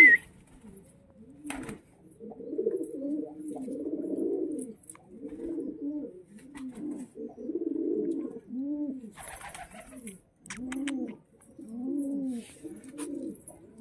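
Domestic pigeons cooing: a long run of low coos, each rising and falling, about one a second. A short rustle with a few clicks comes about nine seconds in.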